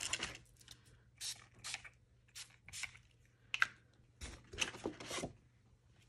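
Sheets of paper or cardstock being handled and slid about: a string of about ten short, separate paper rustles.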